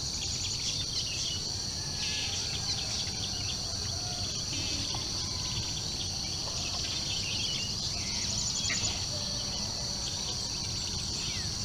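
Dawn chorus at a lakeside: insects keep up a steady high-pitched drone while birds call and trill over it. One fast trill stands out about eight seconds in.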